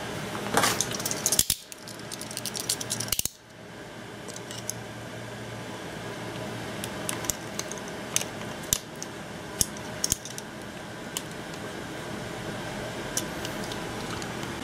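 Utility knife working at the seal of a cardboard tablet box. A burst of rustling and crackling in the first few seconds is followed by scattered sharp clicks and scrapes, over steady background noise.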